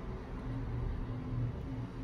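Steady low background hum with a few faint steady tones and no distinct event: room tone.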